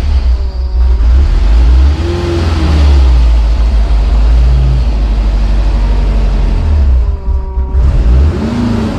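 Porsche 914 engine running cold with its idle a little high, the pitch briefly rising and falling twice, about two seconds in and again near the end.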